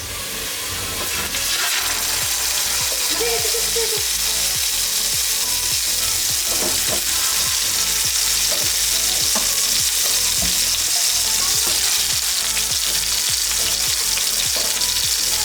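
Food sizzling steadily in hot oil in a pan, a little louder after about two seconds, with faint knocks that sound like stirring.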